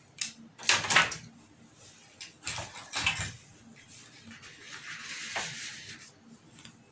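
LED backlight strips being handled: a few sharp clicks and knocks in the first three seconds as the strips' plastic connectors are pushed together, then a soft rustling scrape.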